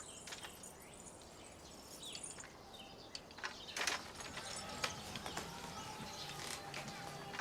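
Quiet outdoor background with faint bird chirps, then scattered light clicks and taps from about halfway through.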